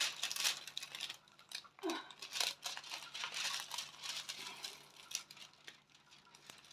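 Intermittent rustling and crinkling from hands handling a sticky diamond-painting canvas and its plastic packaging.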